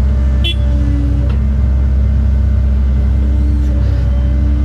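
Cat 309 excavator's diesel engine running steadily, heard from inside the cab, with a hydraulic whine that swells and fades as the machine works. A single short click about half a second in.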